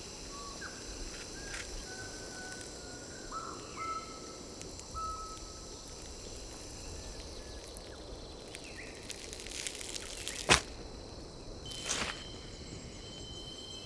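Tropical forest ambience: a steady high background hiss with short whistled bird calls scattered through the first half. Two sharp snaps come about ten and a half and twelve seconds in, the first the loudest sound.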